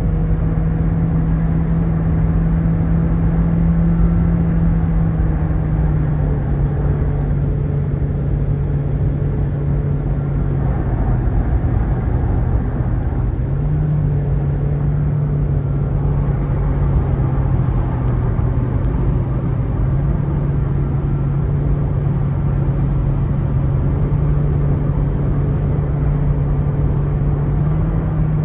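Car driving along a highway, heard from inside the cabin: a steady low engine and tyre drone with road hiss. Its pitch drops a little about six seconds in and rises again about halfway through, as the speed changes.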